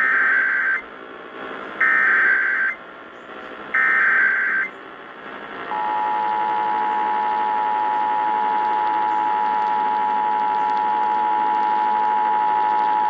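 Emergency Alert System test signal broadcast on AM radio. It opens with three short screeching SAME data header bursts about two seconds apart. After a short pause, the steady two-tone EAS attention signal sounds from about six seconds in.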